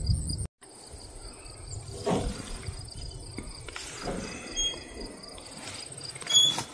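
Faint outdoor ambience of insects chirping steadily, with a few soft knocks and rustles.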